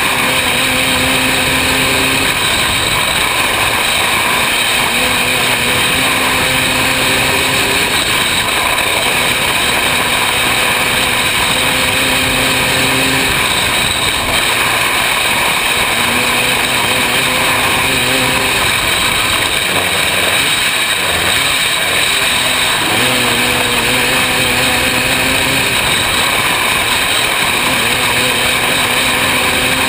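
500cc open-class micro sprint car's engine running hard at racing speed, heard on board over loud wind rush. Its note holds steady for a couple of seconds at a time and then wavers, over and over, as the throttle is worked around the track.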